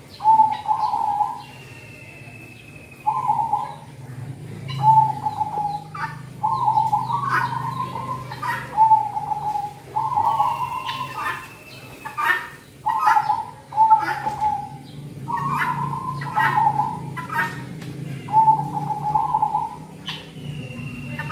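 Zebra dove cooing: short, rapid, rolling coo phrases repeated every second or two, with a thin high whistle heard three times and a low steady hum underneath.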